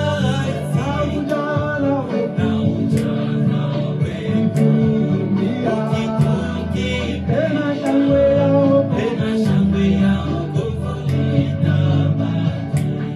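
Gospel song in Swahili: singing over a band, with sharp drum hits.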